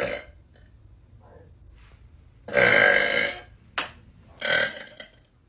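A person burping repeatedly: a short burp at the start, one long loud burp about two and a half seconds in, and another shorter burp near the end.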